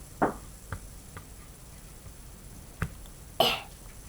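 Small plastic toy pieces handled and knocked together, a few faint light clicks, then a short cough-like breath about three and a half seconds in.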